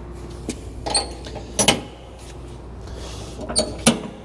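A handful of sharp metallic clicks and clinks, some ringing briefly, as the gauge-wheel locks on a John Deere AutoConnect 60D mower deck are set. A steady low hum runs underneath.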